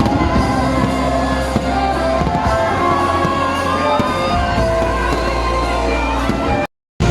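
Loud music with singing over a crowd, with a strong steady bass; it cuts out completely for a moment near the end.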